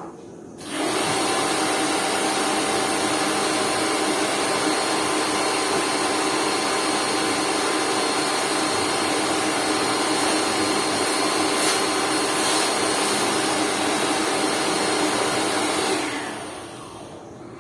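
Lakoni Laguna 70 electric pressure washer motor starting up about a second in, running at a steady pitch, then winding down near the end.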